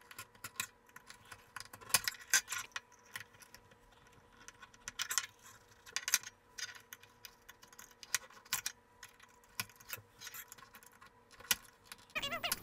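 Irregular clicks, taps and small scrapes of hard plastic and small tools as the broken charging-port piece is worked loose from the Dyson V8 vacuum's plastic body.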